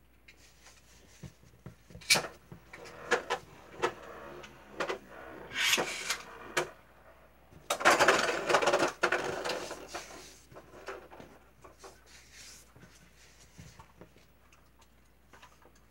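Hands working a ball of bread dough on a floured counter: scattered sharp taps and knocks, then about eight seconds in a couple of seconds of rubbing and brushing as the dough is rolled into a loaf, fading to faint handling sounds.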